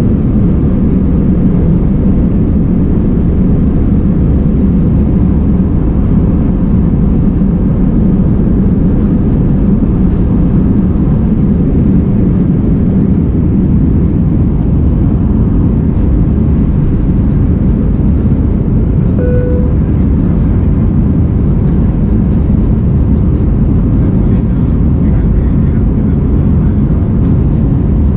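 Airbus A319 jet engines and airflow heard from inside the cabin: a loud, steady, low-pitched drone, as during take-off or climb. About two-thirds of the way through, a single short tone sounds over it.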